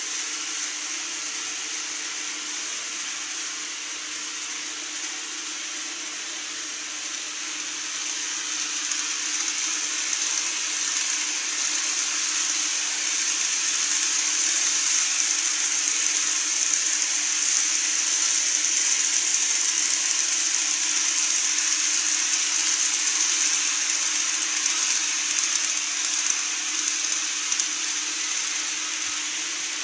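Micro Ace N-gauge model of a Sotetsu commuter train running over a model truss bridge: a steady whirring rumble of wheels on track and motor that swells from about a quarter of the way in, is loudest with the train on the bridge, and eases off near the end. A steady low hum runs underneath.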